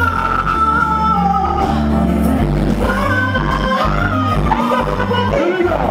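Live band music with a woman singing into a microphone over electric guitar, drums and heavy bass. She holds long notes, the first one sliding down in pitch.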